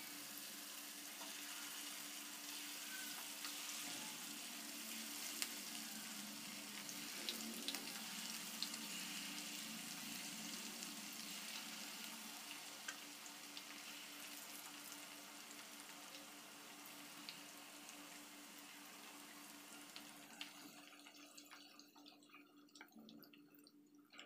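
Cornflour-coated marinated chicken pieces frying in hot oil in a non-stick frying pan: a steady sizzle with scattered small pops, which fades away sharply near the end.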